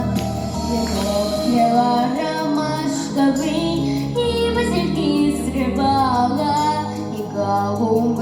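A girl singing a pop song solo over instrumental accompaniment, her voice carrying a melody that moves up and down in pitch.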